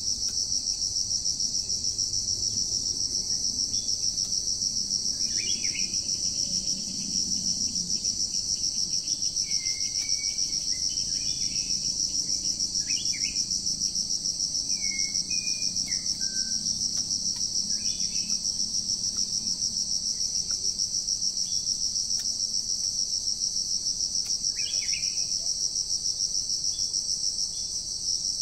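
Steady, high-pitched insect drone with a fast pulse, the loudest sound throughout. A bird gives short, scattered calls and chirps at several moments over it.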